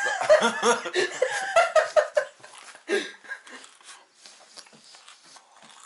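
A man laughing for about two seconds, with a short burst of laughter again about three seconds in, then faint scattered clicks.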